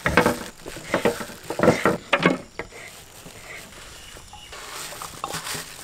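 Knife chopping grilled chicken on a wooden cutting board, several separate strokes in the first two and a half seconds. After that come fainter sounds as the chopped pieces are tipped from a steel plate into a steel bowl.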